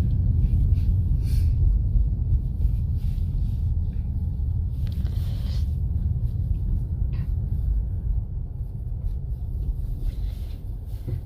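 Steady low rumble of a vehicle driving, heard from inside the cabin, easing off slightly toward the end.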